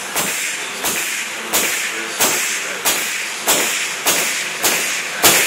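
Pneumatic nailer shooting nails through a plywood skin into a wooden panel frame. There are nine sharp shots about two-thirds of a second apart, each followed by a short hiss.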